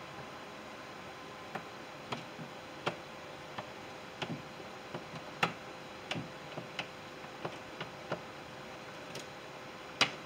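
Irregular light clicks and taps from a truck's plastic door trim panel being handled while the inside door handle cable is worked loose behind it, with the loudest click near the end. A faint steady hum underneath.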